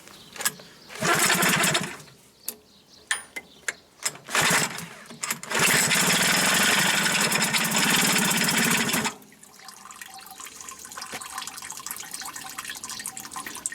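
Hangkai 6.0 two-stroke outboard motor being pull-started: a pull with some clatter, then it runs with a steady rattle for about three and a half seconds and cuts out abruptly. The motor has a grinding noise under the flywheel and stalls.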